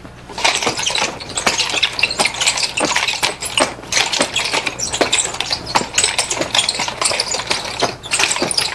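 Chain nunchaku being twirled and swung: a dense, irregular clatter of chain rattles and clicks with swishes, over a steady low hum.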